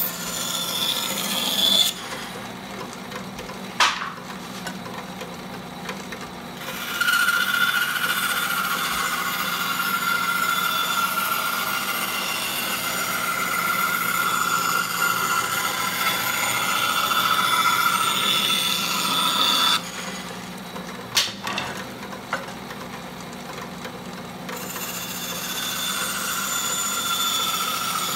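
Floor bandsaw with a freshly changed blade ripping a rough-sawn black locust board. The motor hums steadily while the cutting noise rises and falls as the board is fed. It is strong at first and eases after about two seconds, with a sharp click soon after. A long loud cut with a whine runs from about a quarter of the way in to about two-thirds, then it eases again with another click, and the cutting picks up near the end.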